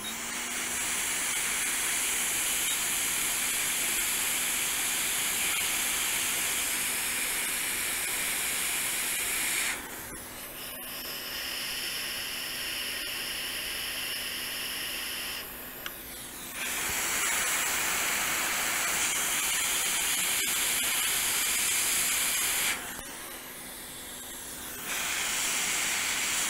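Hot air rework station blowing a steady hiss of air onto the logic board while small resistors are reflowed. The hiss drops quieter twice for a few seconds, about ten seconds in and again near the end.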